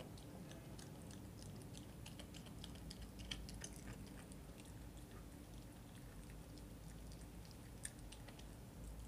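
Puppy chewing on a chicken drumstick: faint, irregular small cracks and clicks of teeth on meat and bone, with a sharper crack about three seconds in and another near the end.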